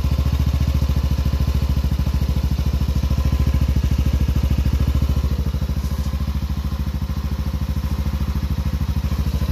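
Yamaha NMAX version 2 scooter's single-cylinder engine idling steadily through an aftermarket JVT exhaust, its firing pulses even and unbroken.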